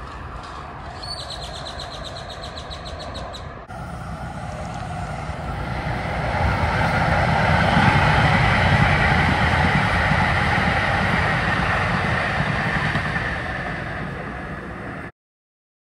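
DART light rail train passing: a low rumbling run-by that builds, is loudest about halfway, fades off and then cuts out abruptly near the end. Before it, for a few seconds, outdoor background noise with a fast, high ticking.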